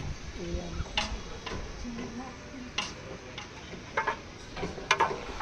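Clay roof tiles clinking and knocking against one another and the steel frame as they are handled and set in place: several sharp separate knocks with a short ring, a quick pair of them near the end.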